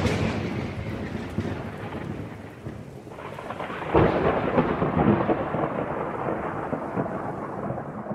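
Thunder sound effect with rain: a rolling rumble dying away, then a second sudden thunderclap about four seconds in that crackles and rolls on, slowly fading under a rain-like hiss.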